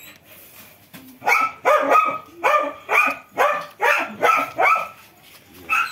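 A dog barking at a cobra: after a quiet first second, a quick run of about ten sharp barks at roughly three a second, then a pause and one more bark near the end.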